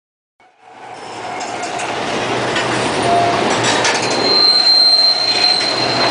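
A dense rumbling, clattering noise fades in from silence during the first second and builds steadily. A steady high squeal joins it about four seconds in.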